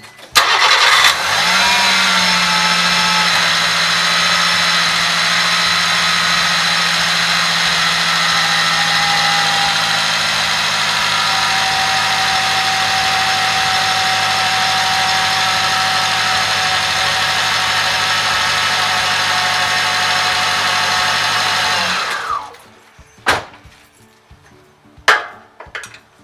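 Subaru Sambar Dias engine started, then idling steadily for about twenty seconds with a whine of high steady tones over the engine note, from the tensioner pulley on the alternator and air-conditioner belt that is thought to be going bad. The engine is switched off about 22 seconds in, followed by a few sharp knocks.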